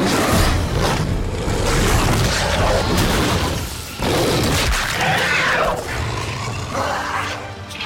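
Film monster-fight sound design: loud booms and crashing impacts over music, with a sudden heavy hit about four seconds in.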